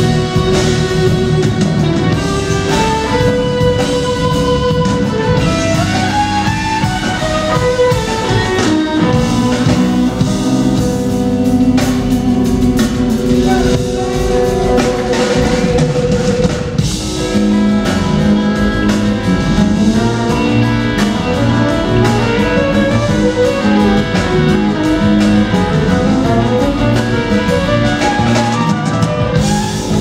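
Live jazz-rock fusion band playing loudly: electric guitar over drums and keyboards, with long held melody notes and a steady drum beat throughout.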